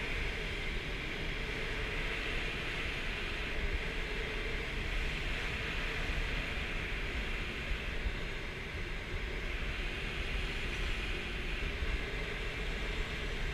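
Steady rush of air over the canopy of a Schleicher ASK 13 training glider in a circling turn, heard from inside the cockpit, with no engine.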